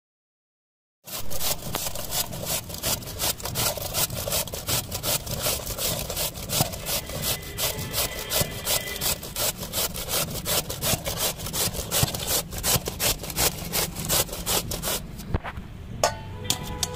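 Ash gourd being grated by hand on a stainless-steel box grater: quick, rhythmic rasping strokes of the firm flesh across the grater's teeth, starting about a second in.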